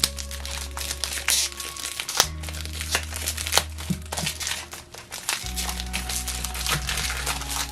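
Packaging crinkling and crackling in quick, irregular handfuls as a mailed package is worked open by hand, over instrumental background music with sustained low notes.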